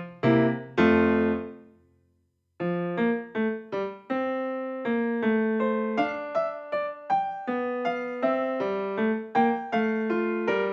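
Background piano music played note by note; a chord dies away to silence about two seconds in, then the playing starts again.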